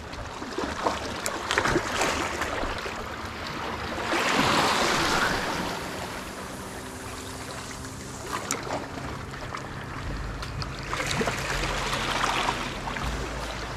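Sea water washing and lapping, swelling twice into a louder hiss of surf, once about four seconds in and again near the end, with scattered small clicks.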